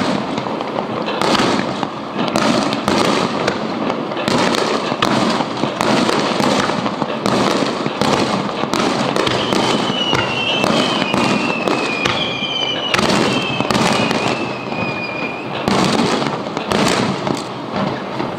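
Fireworks display: aerial shells bursting in quick succession, each bang followed by dense crackling, the bursts overlapping without pause.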